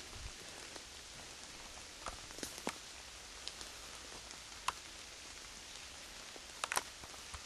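Steady hiss of light rain falling in the woods, with scattered sharp clicks through it, the loudest a close pair near the end.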